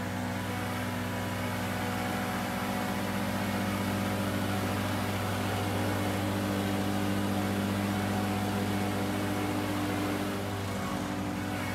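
Ferris stand-on mower's gas engine running steadily at mowing speed with the deck blades cutting grass. It grows a little louder as it comes close, then eases slightly near the end as it passes.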